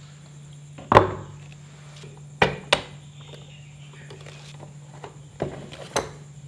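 Oxone stand mixer being assembled: a plastic bowl knocks down onto the mixer's base about a second in, followed by sharp plastic-and-metal clicks, two close together and two more near the end, as the bowl is seated and the metal beater hook is snapped into the mixer head.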